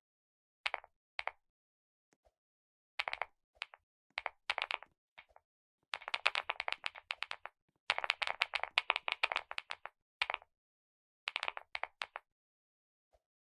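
Computer keyboard being typed on in short bursts of rapid key clicks with pauses between them; the longest, fastest runs come in the middle.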